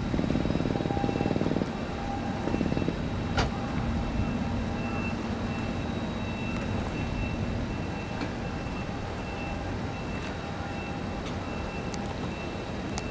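Steady low rumble of distant shipyard and harbour industry across the water, heavier for the first second and a half, with a faint high tone pulsing on and off and a few scattered clicks.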